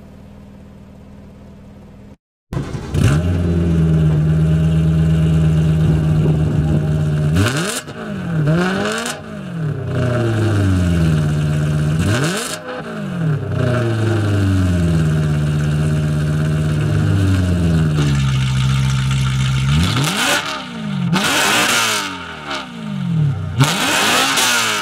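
BMW E92 M3's V8 through a valvetronic aftermarket exhaust, coming in suddenly about two seconds in and running at a steady speed. It is then revved repeatedly, each rev rising and falling back, with the exhaust valve closed. About twenty seconds in the valve is opened, and the quicker revs that follow have a much sharper, brighter edge.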